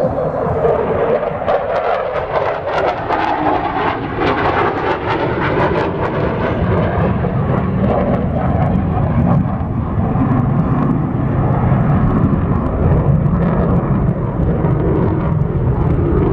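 Aircraft flying past, loud, its engine noise dropping in pitch over the first couple of seconds, then a steady low rumble.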